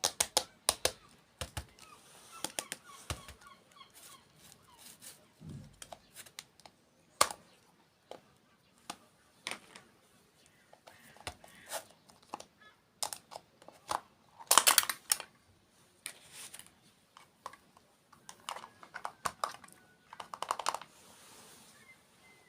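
Close-miked eating sounds: irregular crisp crunches, clicks and mouth smacks as desserts are bitten and chewed, with louder bursts of crunching twice, about two-thirds of the way through and near the end.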